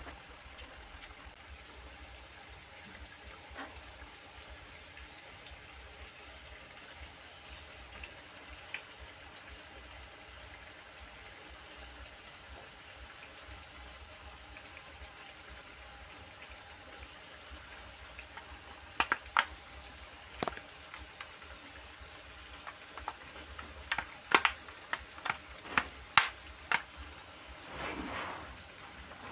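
Grated potato balls deep-frying in hot oil in a pan, a steady sizzle. In the second half, a metal fork clicks sharply against the pan a dozen or so times as the fritters are turned.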